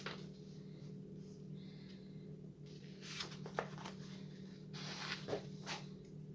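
Paper rustling as the pages of a plastic model kit's instruction booklet are handled and turned, a few crisp rustles in the second half, over a steady low hum.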